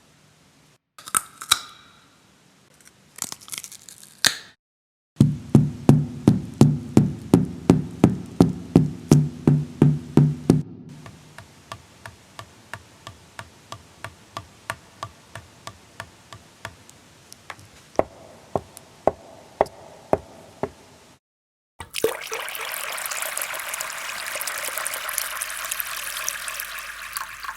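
A string of separate sound-effect clips. First a few short bursts, then sharp knocks at about four a second over a low hum, then fainter clicks at about two a second. After a short gap, a loud steady rushing noise begins near the end.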